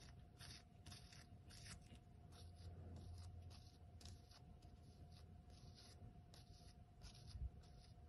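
Faint, soft scraping strokes, about two a second, as a flat spreader smooths thermal paste over the copper heatpipe contact plate of a graphics card cooler.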